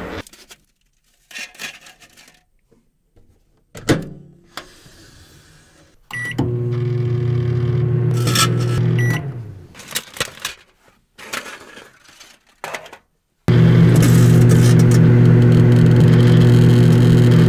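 Microwave oven running with a CD inside: a loud, steady electrical hum that starts with a short beep about six seconds in, stops after another beep about three seconds later, and starts again a little past two-thirds of the way through. In between come scattered sharp crackles and snaps from the CD arcing.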